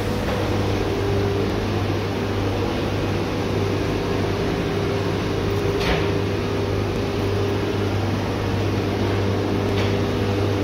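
Steady, even hum of workshop machinery running, with two faint taps, about six seconds in and again near the end.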